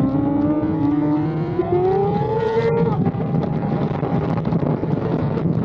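BMW S1000RR superbike's inline-four engine, revs climbing steadily for about three seconds, then falling abruptly and running on at a lower, steady pitch.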